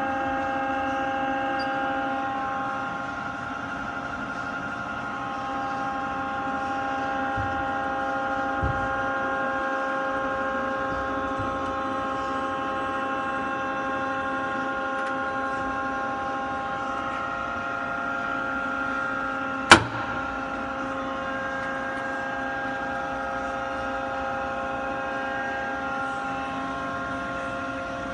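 Takisawa TC-20 CNC turning centre powered up and running, a steady hum of several held tones from its motors and pumps. One sharp click sounds about twenty seconds in.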